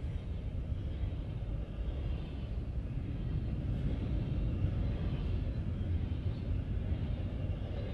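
Norfolk Southern double-stack intermodal train rolling past close by: a steady rumble of steel wheels on rail from the container cars.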